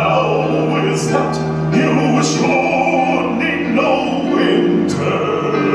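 A male voice singing a slow, stately show tune over sustained orchestral accompaniment.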